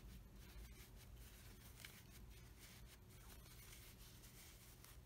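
Near silence: room tone with a low steady hum and faint scattered rustles of handling.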